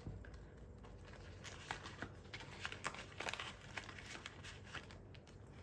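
Faint plastic rustling and scattered light clicks as a card is handled and slid into a clear plastic binder pocket.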